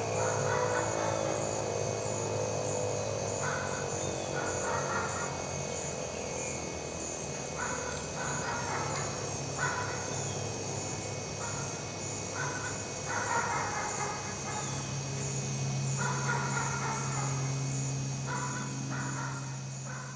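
American Signal Tempest T-128 outdoor warning siren winding down, its falling tone dying out about a second in. After that come short bursts of bird calls over a steady high insect trill and a low hum.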